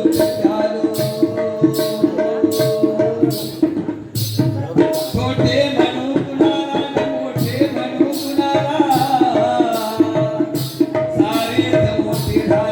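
Jakhadi folk ensemble playing an instrumental passage: a hand-drum rhythm with sharp high strokes about twice a second over held melody notes.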